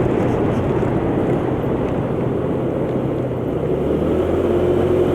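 125cc motor scooter engine running steadily while riding, over a rush of wind and road noise; the engine note shifts about four seconds in.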